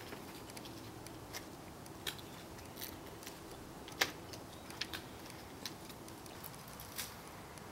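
Faint clicks and crackles of a plastic drinks bottle being handled and its screw cap twisted open, the sharpest click about four seconds in.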